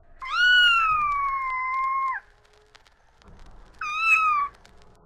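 Domestic cat meowing twice: one long drawn-out meow of about two seconds, falling slightly in pitch, then a short meow near the end.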